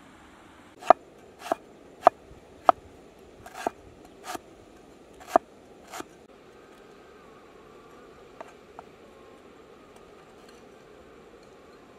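Steel cleaver chopping lemongrass stalks on a round wooden chopping block: about eight sharp knocks of the blade on the wood, roughly two every second and a bit, followed later by two faint taps.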